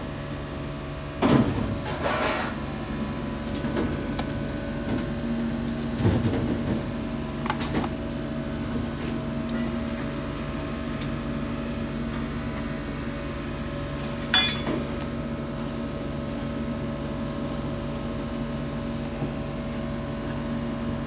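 Steady mechanical hum of commercial kitchen equipment, with a few scattered knocks and clatters, the loudest about a second in and another about two-thirds of the way through.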